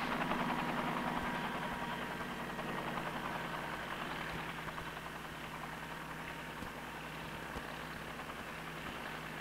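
Helicopter in flight: steady rotor chop with a whining turbine tone, slowly fading.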